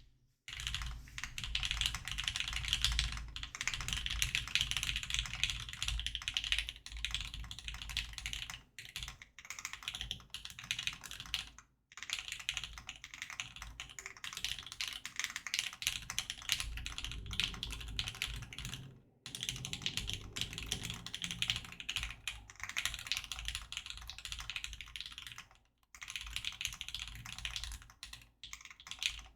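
Continuous typing on a custom mechanical keyboard: a Sneakbox AVA with a POM plate, Lavender switches lubed and fitted with 55 g springs and switch films, and GMK Cafe keycaps. The keystrokes run in a dense, fast stream, with short pauses about 9, 12, 19 and 26 seconds in.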